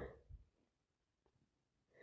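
Near silence. A breathy vocal sound fades out in the first half second, and a gasping in-breath starts at the very end, in the lead-up to a sneeze.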